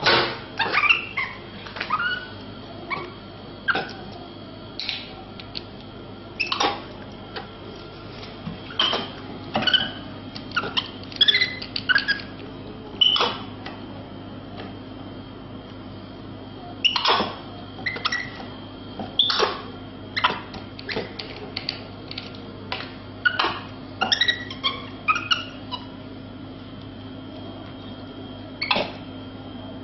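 A monkey handling a plastic drink bottle, twisting off its cap and drinking: short clicks, taps and squeaks at irregular intervals, with a steady low hum underneath.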